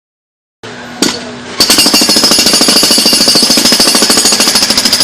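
Jackhammer hammering rapidly and steadily, starting about a second and a half in; before it, a lower steady machine noise with a single sharp knock.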